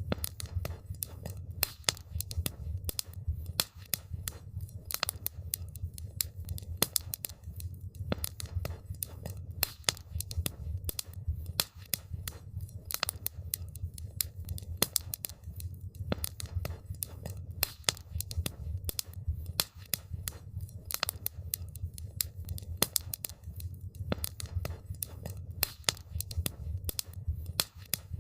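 Wood campfire crackling: irregular sharp pops and snaps, many a second, over a steady low rumble.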